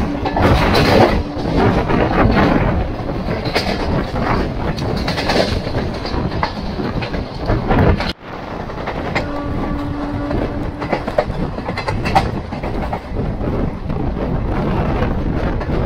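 Indian Railways passenger coach running at speed, heard from its open doorway: wheels clattering over the rails under a steady rush of running noise. The sound cuts out for an instant about eight seconds in, then carries on.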